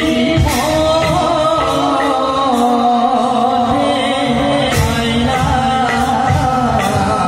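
Traditional Assamese Bhaona song in raga Sindhura set to ektaal: a voice singing over repeated percussion strokes.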